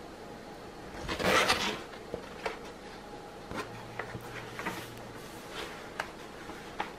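Rustling and crinkling of a large diamond-painting canvas being unrolled and laid flat on a table, loudest for about half a second a second in, then scattered light taps and rustles as it is handled.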